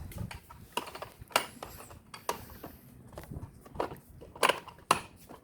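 Hard plastic Milwaukee Packout small-parts bins being handled and opened: several sharp plastic clicks and knocks, with small metal tools rattling inside.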